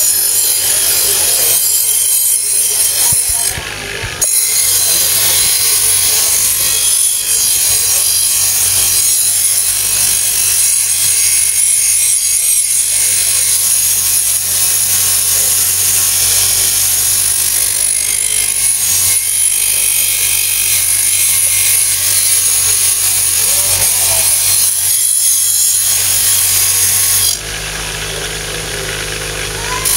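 Kukri machete blade held against the spinning wheel of a Craftsman variable-speed bench grinder, a steady hissing grind of steel on the abrasive over the motor's hum. The grinding drops away briefly about four seconds in and again near the end, when the blade is lifted and only the running motor is left.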